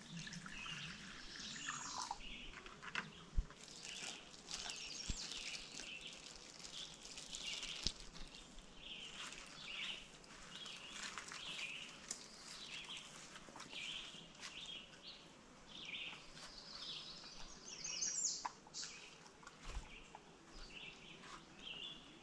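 Songbirds chirping and singing in woodland, many short calls overlapping throughout, with a few faint knocks.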